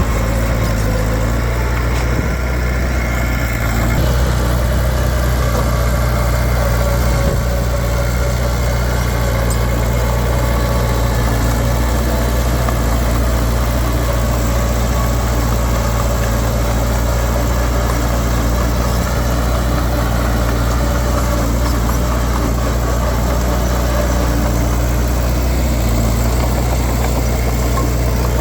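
Komatsu D31P bulldozer's diesel engine running steadily, a deep even engine note with no breaks or changes in speed.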